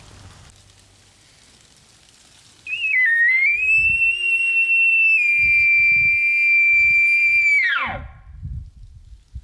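Elk bugle call blown through a camouflage bugle tube: a high whistling note that rises slightly, holds for about five seconds, then drops sharply, followed by a few short low notes.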